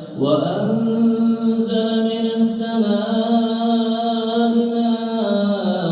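Imam's voice in melodic Quran recitation (tajweed), holding one long drawn-out vowel, the elongated madd of the word "mā'an" (water), for about five and a half seconds, the pitch stepping slightly about two seconds in and again near the end.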